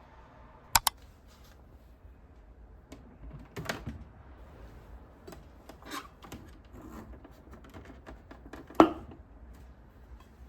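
Parts of a food waste disposer being handled while it is cleaned: a sharp double click about a second in, scattered lighter clicks and knocks, and one louder knock near the end.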